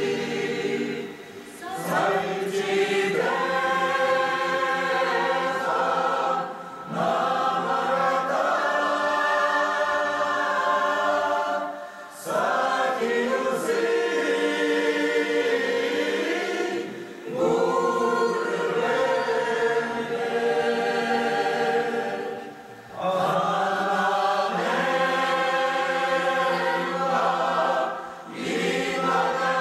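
Mixed choir of men and women singing together in long, held phrases. The sound dips briefly for breath about every five seconds.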